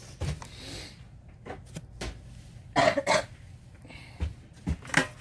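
A few light knocks and clatters as items are moved about in a plastic laundry basket, with a short cough about three seconds in.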